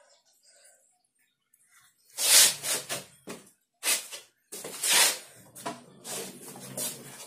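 A person's voice in short, hissing bursts, starting about two seconds in.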